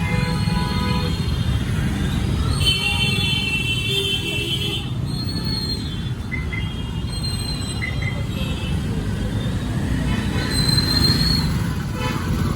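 Busy street traffic running with a steady rumble while vehicle horns honk several times, including one long honk of about two seconds a few seconds in.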